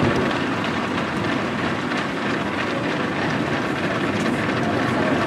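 Footfalls of a large pack of runners on a road, a dense steady patter of many feet at once.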